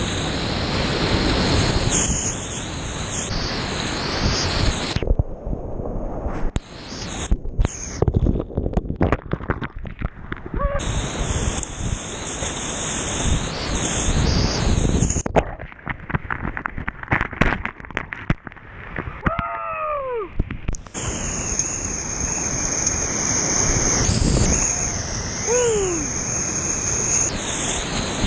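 Whitewater rushing and crashing around a kayak on a steep creek rapid, heard close up from a camera riding on the paddler, with sharp splashes and knocks against the camera coming thick and irregular through the middle. A couple of short gliding, whistle-like tones sound in the second half.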